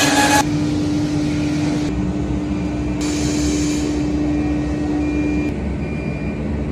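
Motor of a lock and hinge milling machine running with a steady hum, with a brief burst of hissing cutting noise about three seconds in. The hum stops a little after five seconds, and short high beeps repeat near the end.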